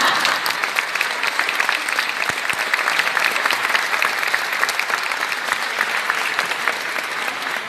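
Theatre audience applauding, many hands clapping steadily with a brief swell of cheering at the start.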